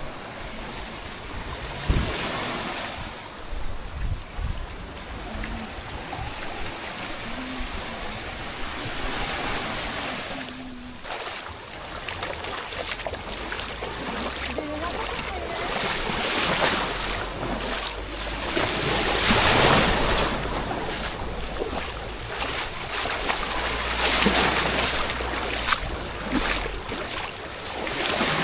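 Small waves washing on a shore, rising and falling in swells, with wind buffeting the microphone.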